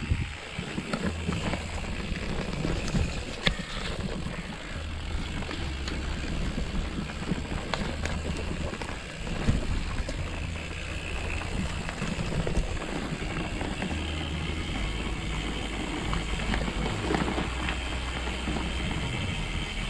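Gravel bike rolling along a dirt forest track: steady tyre and wind noise, with scattered knocks and rattles from bumps in the trail.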